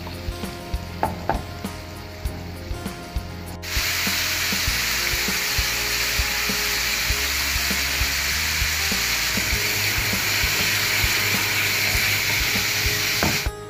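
Diced pork frying in oil in a pan, with a wooden spatula tapping and scraping the pan. About four seconds in the sizzle jumps abruptly much louder into a steady hiss, which cuts off suddenly just before the end. Faint background music underneath.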